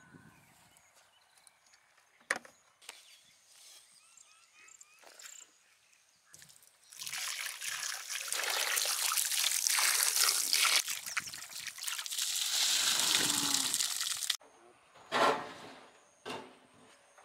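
Water poured from a large metal pot onto raw rabbit meat on a tray, rinsing it: a steady splashing that starts about seven seconds in, runs some seven seconds and cuts off suddenly. Before it there are a few light knocks and clicks.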